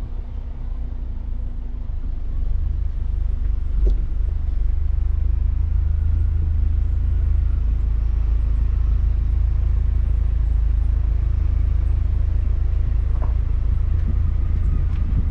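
Mini Cooper Countryman All4 driving over an off-road trail: a steady low rumble of the car and its tyres, with a couple of short knocks, one about four seconds in and one near the end.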